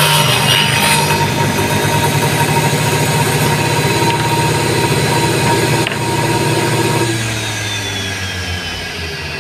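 Homemade table saw driven by a hand angle grinder with a 7-inch blade, running steadily at a constant pitch. A short burst of cutting noise at the very start is the blade finishing its cut through the wood. About seven seconds in, the motor's whine drops out and the saw starts winding down.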